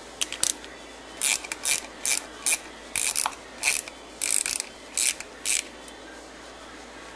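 A 5/16-inch ratcheting wrench clicking in about a dozen short bursts as it is swung back and forth, backing out the cover screws of a Walbro fuel pump. The bursts stop a little over a second before the end.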